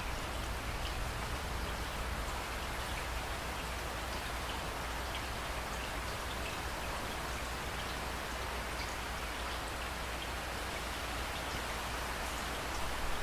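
Steady rain falling, with scattered individual drops ticking through it.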